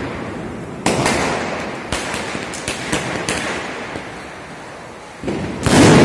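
Diwali firecrackers and fireworks going off. A loud bang comes about a second in, then a quick string of sharp cracks, then another loud bang near the end. Each report fades out slowly, echoing between the apartment towers.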